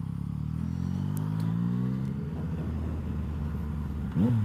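Yamaha MT motorcycle engine heard from the rider's seat, its note rising as the bike accelerates over the first two seconds, then running steadily, with a quick sharp rise and fall in revs near the end.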